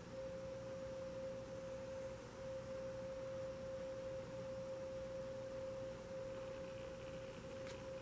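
A steady pure tone held at one pitch throughout, like a sounding tuning fork, over a faint low hum. There is a single faint click near the end.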